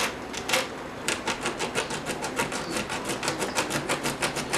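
Obsidian dagger sawing through packing tape on a cardboard box: a few short scrapes, then rapid, even strokes about seven a second from about a second in.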